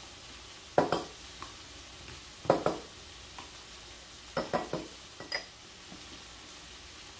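A spoon clicking and knocking against a mayonnaise jar several times while sauce is mixed in it, the sharpest knocks about a second in and again at two and a half seconds. Under it, a faint steady sizzle of onions caramelizing in a cast-iron skillet.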